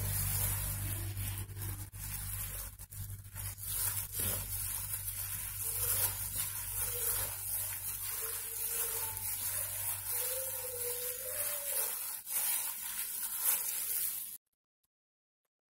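A plastic-gloved hand rubbing and mixing dry flour in a plastic bowl: soft scattered rubbing and light knocks over a steady low hum and hiss. The sound cuts off suddenly near the end.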